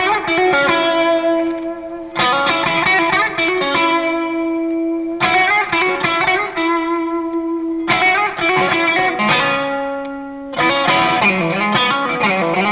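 Electric guitar, a Fender Stratocaster Deluxe Roadhouse, played lead: melodic phrases of held notes with vibrato and bends, a new phrase struck about every two to three seconds.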